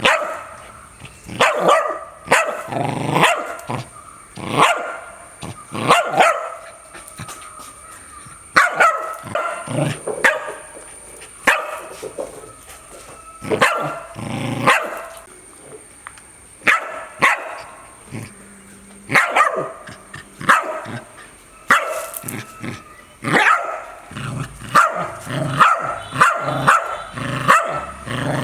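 Dog barking loudly and repeatedly, with single barks and quick runs of several barks separated by short pauses.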